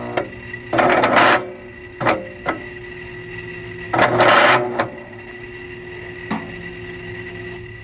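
Electric starter of a Kohler Command 20 engine, its solenoid jumped, spinning in two short bursts under a second each, the pinion rasping against the flywheel ring gear instead of meshing. The replacement drive gear has 10 teeth where the original had 9. A few light clicks come between the bursts, over a steady hum.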